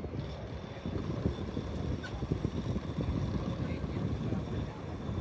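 Wind buffeting the microphone on a cruise ship's open deck: an uneven, gusty low rumble.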